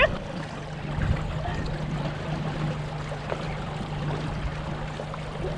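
Steady low hum from a small fishing boat, with water trickling and lapping around the hull.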